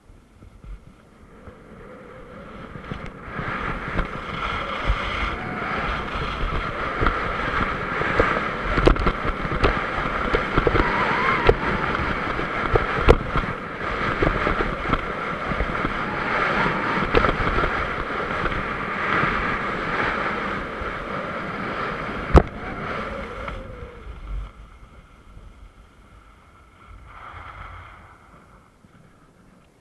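Wind rushing over an action camera's microphone and skis scraping and chattering over hard, chopped-up snow during a fast downhill run, with scattered knocks. It builds over the first few seconds and drops off sharply about 24 seconds in as the skier slows.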